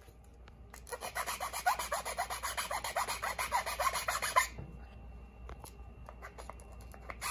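Round chainsaw file rasping back and forth across the edge of a plastic ear-muff cup, cleaning up a freshly sawn notch for a wire. Quick strokes, several a second, start about a second in and stop after about three and a half seconds, followed by a few faint clicks.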